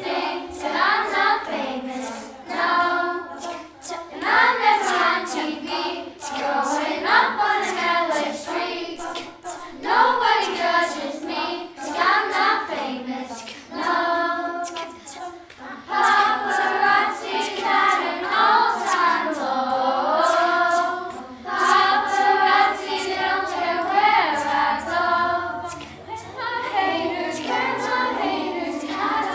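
Children's glee club singing a pop song a cappella in unison, with sharp percussive clicks keeping a steady beat.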